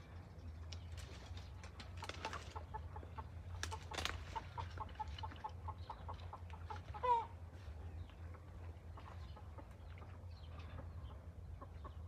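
Chicken clucking: a run of short clucks, about three a second, ending in one louder call about seven seconds in. Brush rustles now and then as someone moves through it.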